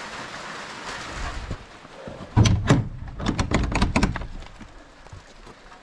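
A door being shut: a quick run of knocks and bangs lasting under two seconds, about halfway through, over light rain.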